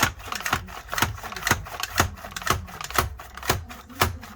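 Kleva safety slicer slicing potatoes, its plunger pushed down over and over with a sharp clack about twice a second as each potato goes through the blade.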